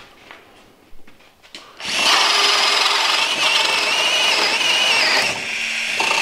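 Cordless drill boring a Wood Owl Overdrive auger bit through a knot in a softwood board. After about two quieter seconds the drill starts and runs under load with a steady whine for about three and a half seconds, then drops to a lower level near the end.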